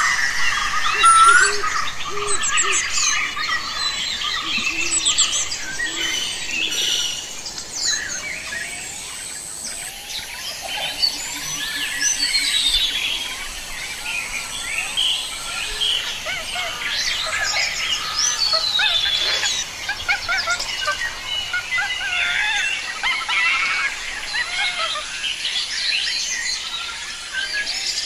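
Many birds calling at once: a dense chorus of overlapping chirps, trills and short whistles throughout, with no one call standing out for long.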